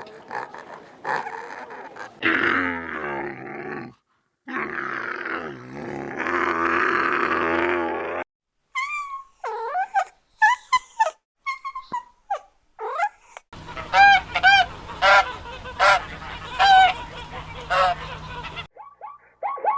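Farm waterfowl honking and calling in a string of short clips joined by abrupt cuts: rough, noisy calling in the first half, then short pitched calls and a rapid run of repeated honks in the second half.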